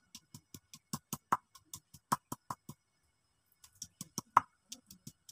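Stone pestle (nora) pounding on a flat grinding stone (shil), stone knocking on stone in quick strokes, about five a second. They pause about two and a half seconds in, then start again about a second later.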